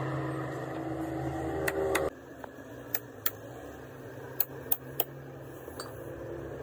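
Steady mechanical hum that cuts off abruptly about two seconds in, followed by five sharp clicks or taps over the next two seconds.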